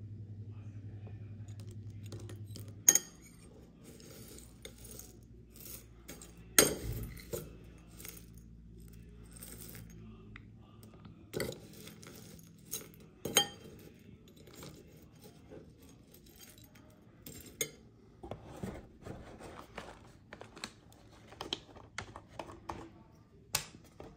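A metal spoon clinking against the bowl and scraping through dry crunchy muesli, with about half a dozen sharp clinks spread through and light rustling between them. A low steady hum runs under the first three seconds and cuts off suddenly.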